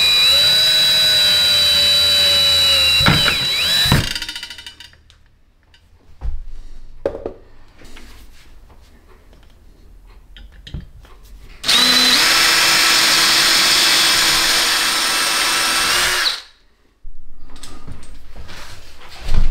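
DeWalt cordless drill driving screws to fix a metal shelf bracket, in two runs of about four seconds each with a steady whine. The first run slows and drops in pitch before stopping about four seconds in. The second starts about twelve seconds in and cuts off suddenly. A few light knocks and handling noises fall between the runs.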